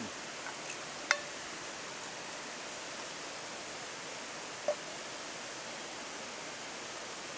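Steady rush of a shallow river flowing over stones. Two short metallic clinks of cooking utensils against a metal pot ring out, a loud one about a second in and a softer one a little past halfway.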